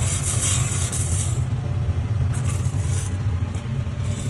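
Coffee roasting equipment running with a steady low hum, just as the beans are poured out at the end of the roast. A hiss on top drops away about a second and a half in.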